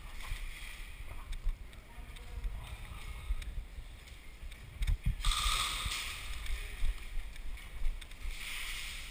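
Low rumbling and scattered thumps of a player on the move, with stretches of rustling hiss about five seconds in and again near the end.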